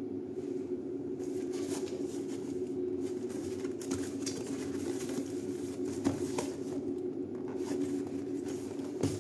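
Cardboard box being picked up and turned over in the hands: light scrapes, rubs and taps of cardboard starting about a second in, over a steady low hum.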